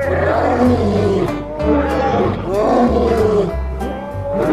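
Two male lions roaring, a series of long rising-and-falling calls, over background music with a steady beat.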